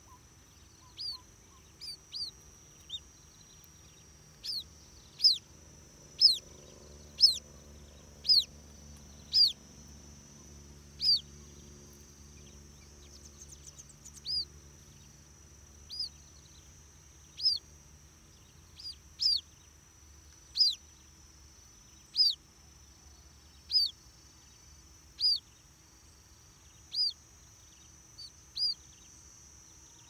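White-breasted waterhen chicks peeping: short, high chirps that fall in pitch, repeated about once every second or so, some much louder than others.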